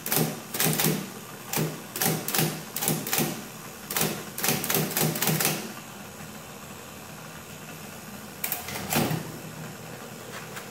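1940s IBM Electromatic electric typewriter being typed on: a quick, irregular run of type bars clacking against the platen, then after a pause two more clacks, with a steady hum beneath. It is a key test in which some keys still fail to register, which the repairer puts down to slipping on the rubber drive drum or resistance elsewhere.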